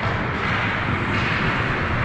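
Steady rink noise during an ice hockey game: a continuous broad wash of play sounds over a low rumble, with no words.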